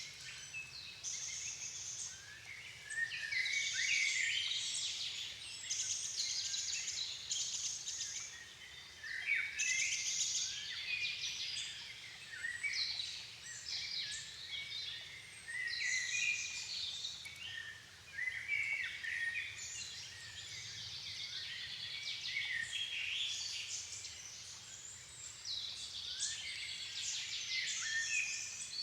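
Dusk chorus of several songbirds singing over one another, short high phrases overlapping densely throughout.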